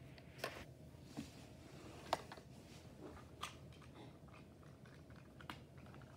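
Quiet room tone with about five faint, sharp clicks or taps scattered through it, the strongest about two seconds in.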